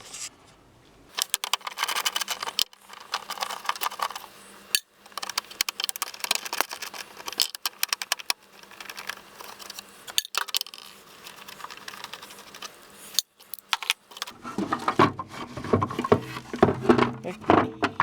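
Ratchet wrench clicking in quick runs as 10 mm bolts are backed out, with metal tools and hardware rattling between runs. Louder knocking and scraping in the last few seconds.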